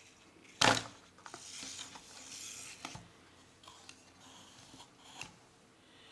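Plastic parts of a ROBI robot's hip and leg joint assembly being handled: a sharp knock about half a second in, then rustling scrapes and a few light clicks.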